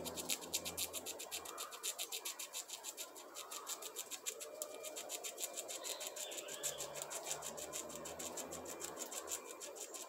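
Squirrel gnawing the hard shell of a small palm nut: a rapid, even run of dry rasping scrapes from its teeth, with faint bird calls behind.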